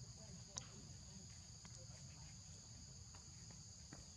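Steady, high-pitched drone of insects, two even tones held without a break, over a low rumble. A sharp click about half a second in, and a few fainter ticks later.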